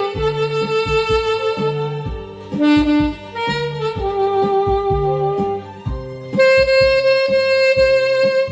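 Saxophone playing a slow melody of long held notes over a backing track with a steady beat.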